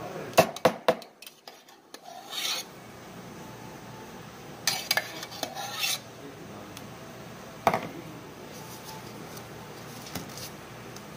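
A metal spoon clinking and scraping against a paper cup and a stainless-steel milk pitcher as milk foam is spooned onto a drink, in a few sharp clicks and short rasping scrapes separated by pauses. Near the end come faint clicks as a plastic lid is pressed onto the cup.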